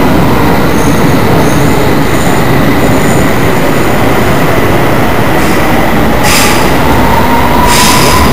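London Underground electric train pulling out of the platform: a loud, steady rumble of wheels on rail, with the traction motors' whine rising in pitch over the last few seconds as it gathers speed. Two brief high hisses near the end.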